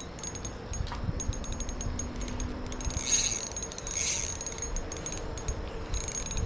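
Spinning reel ticking in rapid clicks while a hooked smallmouth bass is played on light line, with louder buzzing bursts about three and four seconds in.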